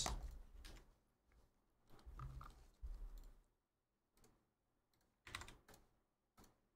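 Faint computer keyboard and mouse clicks: a quick run of sharp clicks about five seconds in and one more a second later, after a low muffled bump a couple of seconds in.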